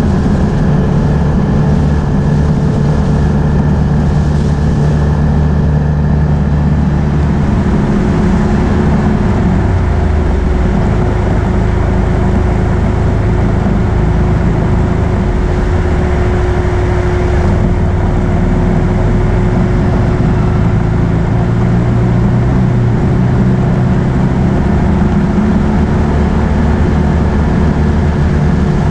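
Can-Am Outlander ATV engine running steadily as it is ridden, its pitch shifting a few times with the throttle.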